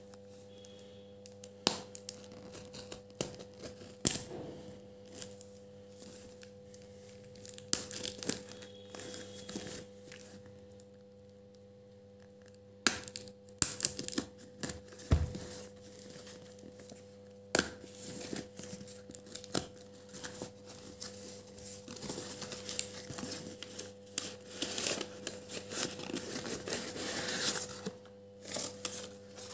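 Packing tape on a cardboard parcel being slit with a ballpoint pen and torn away, with scattered taps and scrapes on the box. The tearing and cardboard handling get busier in the second half as the flaps are pulled open.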